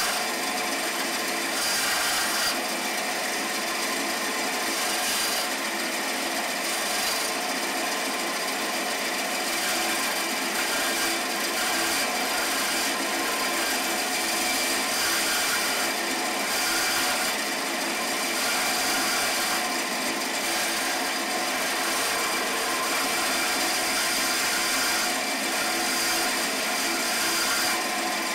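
Bandsaw running steadily with its blade cutting the teeth of a plywood gear wheel, the cutting noise swelling every few seconds as the wood is fed into the blade.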